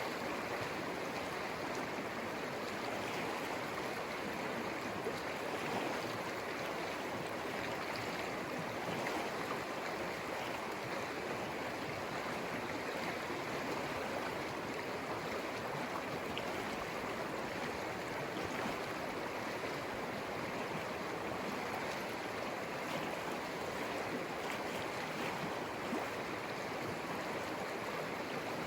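Conejos River flowing, its water rushing over the riverbed in a steady, unbroken wash.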